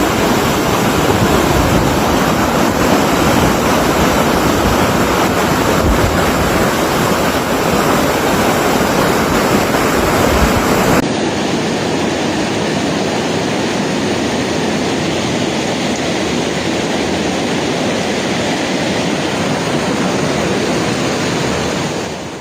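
Floodwater rushing through city streets, a dense, steady wash of noise with wind buffeting the microphone. About halfway through it changes abruptly to a slightly quieter, thinner rush.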